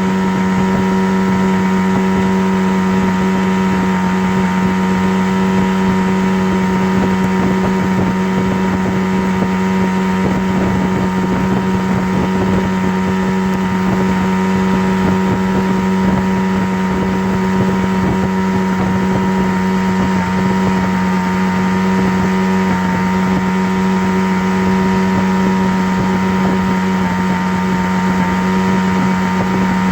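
A steady motor-like drone with one strong low pitch and a rough buzz over it, unchanging throughout.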